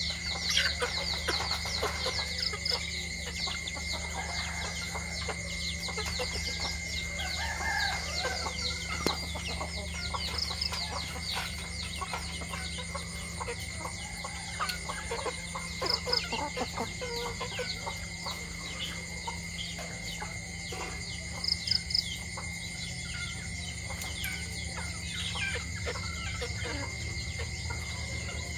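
A small flock of free-range chickens clucking and calling while they peck at scattered rice on concrete, with many quick sharp ticks and a few louder short calls. A steady high tone runs underneath.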